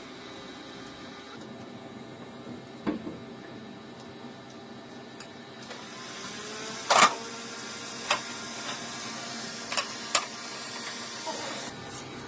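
A steady machine hum with scattered sharp knocks and clicks, the loudest about seven seconds in.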